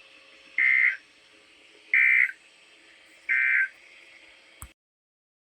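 Three short bursts of EAS digital data tones, the SAME end-of-message code, each about a third of a second long and about a second and a quarter apart, over a faint hiss from the broadcast. A click follows near the end, and the audio cuts off.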